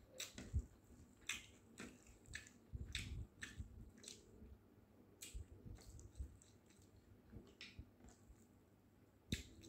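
Faint close-up eating sounds: a man chewing boiled mutton and rice, with small clicks and smacks scattered irregularly throughout.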